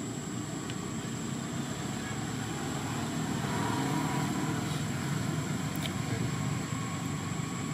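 Steady low rumbling background noise, like distant traffic, with a thin, steady high-pitched whine over it.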